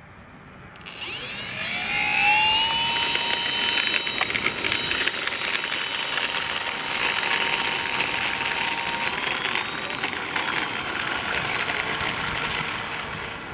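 Electric motor and propeller of an RC Skytrainer model airplane spinning up, a whine that rises in pitch about a second in and then holds steady with a hiss, as the plane taxis across asphalt for takeoff.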